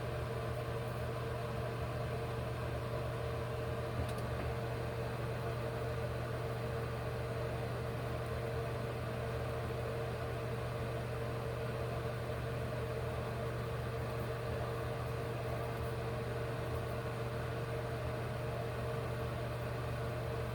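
Steady low mechanical hum of an electric appliance running, unchanging throughout.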